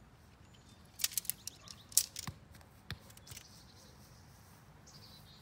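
Metal ground stakes and goal poles clicking and clinking against each other as they are sorted by hand: a cluster of sharp clicks from about a second in to about three seconds in.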